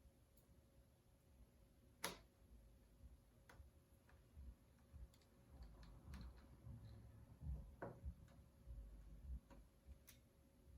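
Faint clicks and taps of small screws and a screwdriver as screws are put back into a laptop's screen assembly, with light handling noise; the sharpest click comes about two seconds in, and a few fainter ones are scattered after it.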